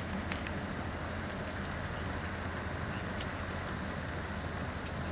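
Steady low hum of an idling diesel engine, with a few short sharp clicks scattered through it.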